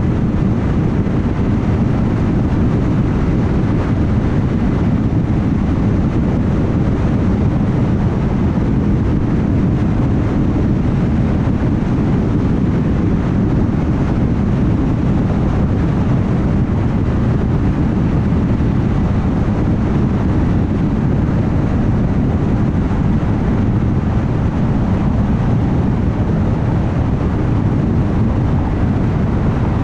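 A car driving at highway speed, with a steady, even rumble of tyre and wind noise that is heaviest in the low end and does not change.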